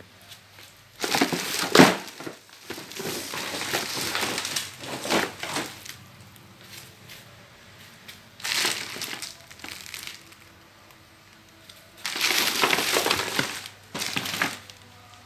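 Clear plastic wrapping on ride-on toys crinkling as it is rubbed and pressed, in several bursts of crackling; the loudest is about two seconds in and the last runs from about twelve to fourteen seconds.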